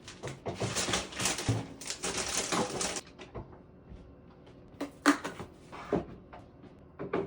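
Grocery packaging rustling and crinkling for about three seconds as items are handled, then a few sharp knocks as groceries are put away in a cabinet, the loudest about five seconds in.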